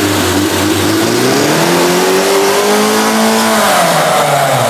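Classic Lada four-cylinder engine revving hard, its pitch climbing to a peak and then dropping away over the last second or so as the exhaust is shut off with a ball valve on the welded-shut muffler, choking the engine.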